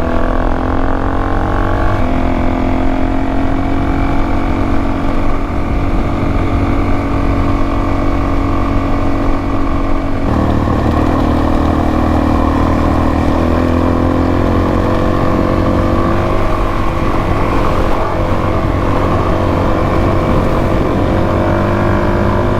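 Suzuki DR-Z400S single-cylinder motorcycle engine running steadily while riding along a road. The engine note changes abruptly about ten seconds in.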